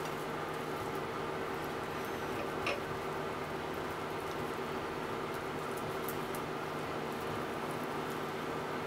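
A steady background hum and hiss, with faint soft rubbing and small ticks from fingers pressing potato starch onto cubes of thick deep-fried tofu on a plate. One brief, sharper click comes about two and a half seconds in.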